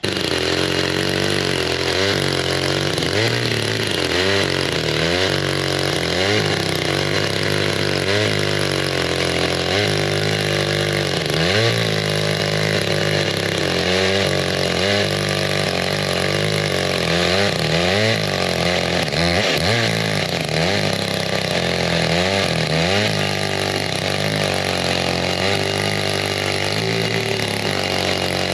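Echo two-stroke chainsaw running at high revs while milling a log lengthwise free-hand, its engine pitch dipping and recovering again and again as the bar bites into the wood.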